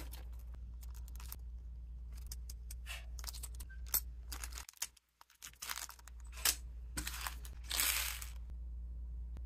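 Small zip-lock plastic bags of model parts being handled on a table, crinkling in short, separate rustles, the longest about eight seconds in.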